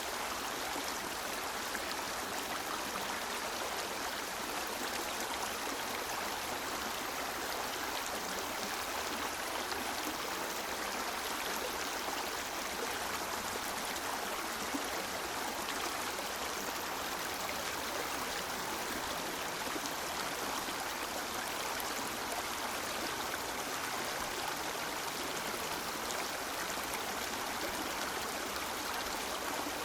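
River water flowing, a steady rushing and burbling of a stream.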